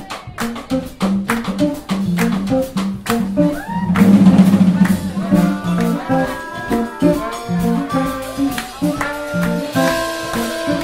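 Small live instrumental band: electric bass and drum kit play a groove with crisp drum hits, then about four seconds in the music swells louder as harmonica and trombone carry the melody over the bass and drums.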